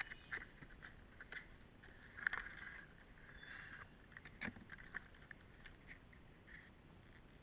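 Cardboard box and plastic tool packaging handled with gloved hands: scattered rustles, scrapes and clicks, the loudest a little over two seconds in and about four and a half seconds in.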